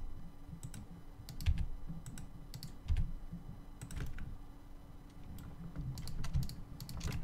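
Computer keyboard and mouse being used: irregular key presses and clicks, a few at a time with short pauses between them.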